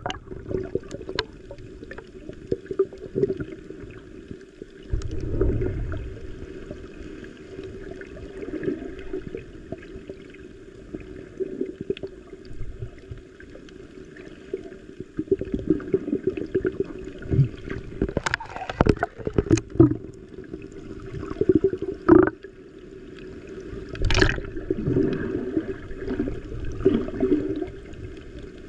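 Muffled underwater water noise as picked up by a submerged GoPro Hero 9: a steady low gurgling wash. A cluster of sharp knocks comes about two-thirds of the way through, with two more single knocks near the end.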